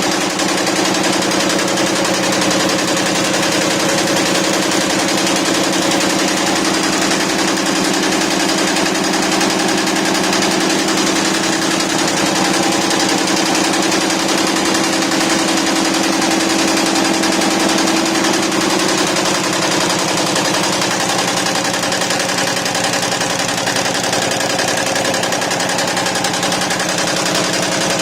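YBD164 64-needle quilting embroidery machine stitching at speed: a rapid, steady mechanical clatter with a humming tone in it that fades a little about two-thirds of the way through.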